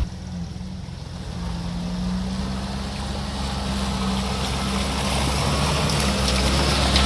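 Off-road vehicle engine running steadily at low revs, its hum slowly growing louder.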